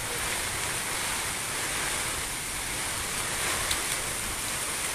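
Heavy downpour with strong wind in a storm: a steady rushing noise of rain and wind.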